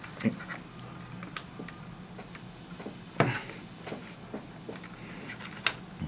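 Scattered clicks and knocks of a plastic car-audio adapter module and its cable being handled, with a sharper knock about three seconds in and another near the end, over a faint steady hum.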